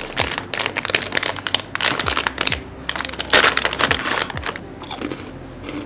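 Plastic snack bag crinkling and rustling as hands pull at it, struggling to get it open. The crinkling is loudest about three and a half seconds in and softer after that.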